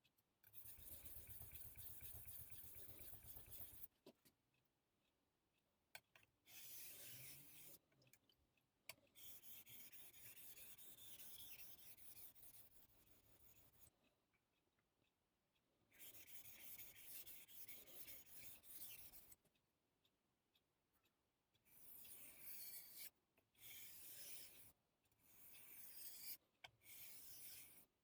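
Steel edge of a yanagiba knife scraping back and forth on a whetstone, in several runs of strokes a few seconds long with short pauses between them.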